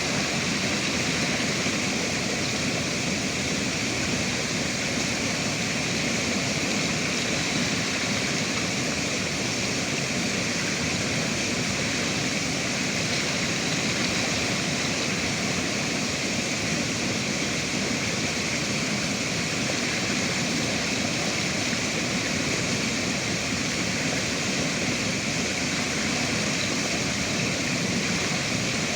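Flowing river water, a steady rushing that never lets up.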